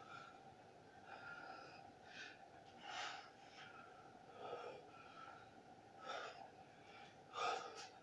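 A man breathing hard from exertion during push-ups: short, heavy breaths about every one to one and a half seconds, the loudest near the end.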